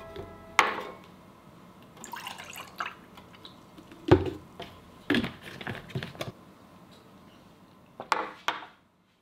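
Juice pouring from a plastic bottle into a glass mug, with clicks and sharp knocks as the bottle is handled and set down on a table; the loudest knock comes about four seconds in.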